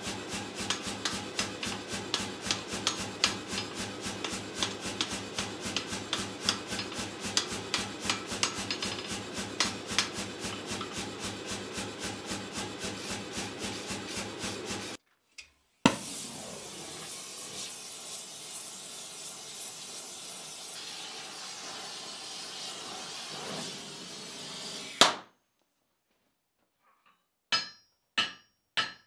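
Blacksmith's hand hammer striking a hot iron bar on an anvil in a fast, even rhythm of about four blows a second, over a low steady hum. About halfway through this stops abruptly and a steady rushing noise runs for about nine seconds. Near the end, after a short silence, come a few slower, separate hammer blows.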